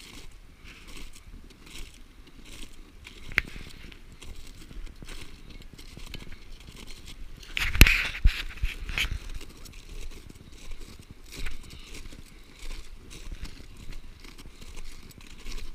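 Crampon-shod boots crunching and scraping on glacier ice in an uneven walking rhythm, with a sharp click a few seconds in and a loud knock about eight seconds in.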